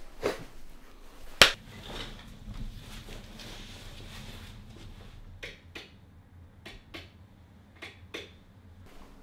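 A sharp knock about a second and a half in, then from about halfway through a string of light clicks and taps, some in quick pairs, over a faint low hum.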